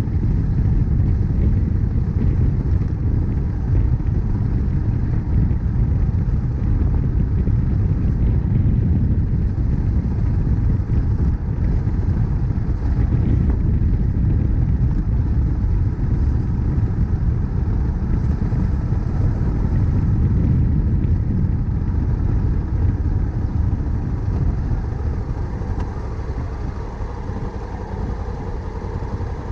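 Honda CRF1100L Africa Twin's parallel-twin engine running steadily under way, heard with a low rumble of road and wind noise on the bike-mounted action camera's microphone. The sound eases off a little near the end.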